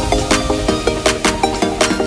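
Electronic background music with a steady, quick beat and short repeated synth notes.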